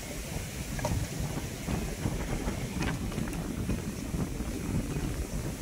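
Wind buffeting the microphone: an unsteady low rumble with no clear engine tone.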